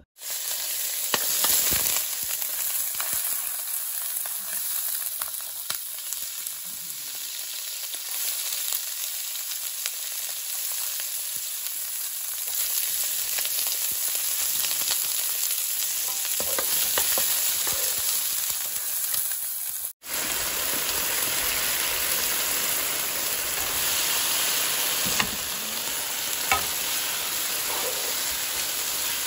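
Oil sizzling steadily in a nonstick frying pan as pork, garlic and sliced hot peppers stir-fry, then okra. The sizzle breaks off for an instant about twenty seconds in and resumes, with a few light clicks near the end.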